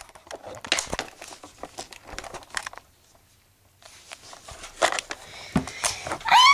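Handling noise from toys and props being moved: scattered light clicks and crinkling, with a near-silent pause about halfway through, then more clicks.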